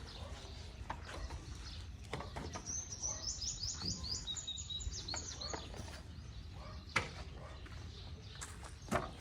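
A small bird chirping a quick run of about ten high notes over roughly three seconds. Two sharp knocks come later, over a steady low rumble.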